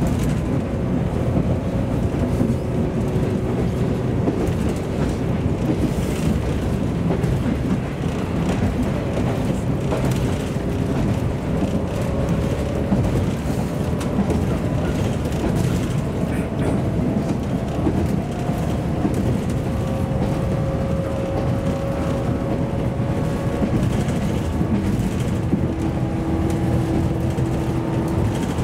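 Interior running sound of a Series 113 electric train's motor car: its MT54 traction motors whine, the tone climbing as the train picks up speed, over the steady rumble of the wheels on the rail. From about halfway the train is running flat out, and the car starts to rattle and joggle on the track.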